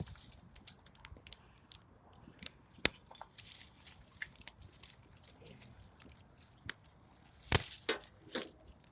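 Dry twigs and sticks being snapped and crunched by hand, a run of irregular cracks and crackles with one loud snap about seven and a half seconds in.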